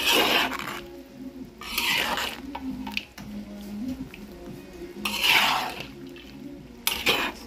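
Metal spatula scraping and turning chicken pieces in sauce in a wok, in four strokes.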